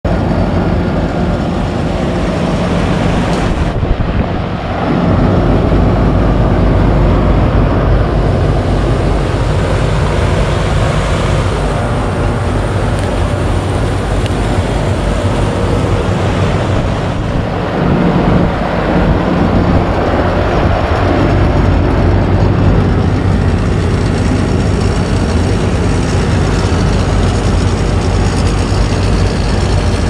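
Carrier Gemini heat pump outdoor unit running with a steady hum and whoosh from the compressor and fan, its outdoor coil heavily iced up.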